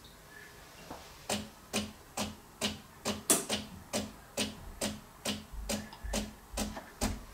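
DeLonghi ECAM22.360.S bean-to-cup coffee machine clicking in an even rhythm, a little over two clicks a second, from about a second in, as it works through a double coffee.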